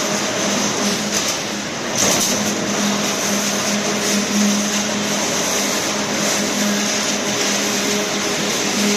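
A WGF-12E2 rebar straightening and bending machine running at full speed. It makes a steady, loud mechanical noise over a constant low hum, with a brief louder burst about two seconds in.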